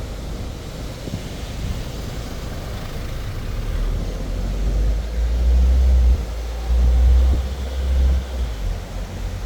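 Car driving along: steady road noise with wind buffeting the microphone, the low rumble swelling twice in the second half.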